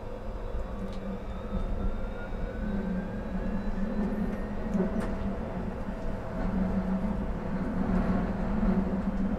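Electric tram running along the track, heard from the driver's cab: a steady low rumble with a faint traction-drive whine that rises in pitch over the first few seconds as the tram picks up speed.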